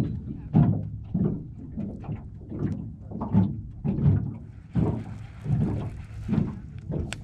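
Small wind-driven waves slapping against the flat hull of an aluminum jon boat: a low, hollow thump about every two-thirds of a second. A steady hiss joins about five seconds in.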